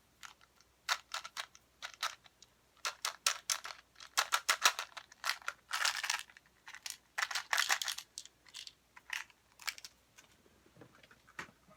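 Quick clicks and rattles of hard plastic being handled, Tic Tac mints and a 3D-printed plastic candy launcher. The clicks come in uneven clusters and are thickest in the middle.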